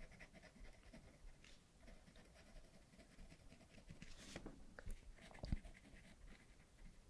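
Faint scratching of colouring strokes on a paper colouring book, with a few soft taps about four to five seconds in.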